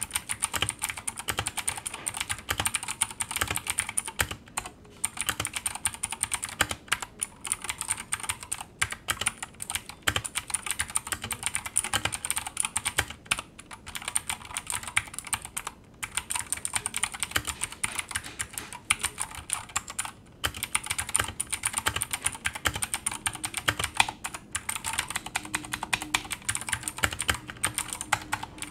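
Typing on a Keychron K2 version 2 mechanical keyboard fitted with blue switches: a fast, continuous run of clicky keystrokes, broken by a few brief pauses.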